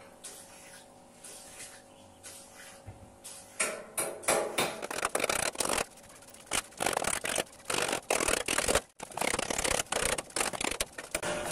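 Light-gauge steel frame pieces being handled and shifted, giving irregular rubbing, scraping and clattering. It starts about a third of the way in, after a quiet start with a faint steady hum.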